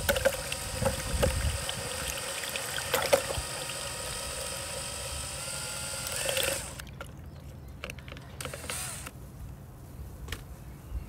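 Cordless DeWalt drill driving a paddle mixer, its motor whining steadily as it churns citric acid into warm water in a plastic pitcher. The drill speeds up slightly and stops about six and a half seconds in, leaving a few faint clicks.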